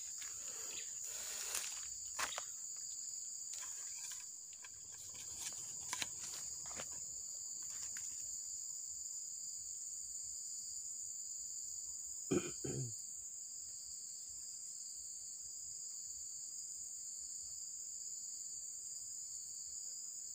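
Steady high-pitched insect chorus, two unbroken shrill bands, with small clicks and rustles of handling during the first eight seconds and a brief vocal sound about twelve seconds in.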